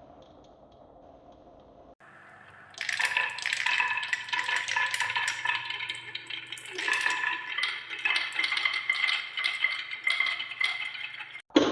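Marbles rolling and clattering down a marble run track, a dense stream of rapid clicks and ringing clinks that starts about three seconds in after a faint, fading lead-in.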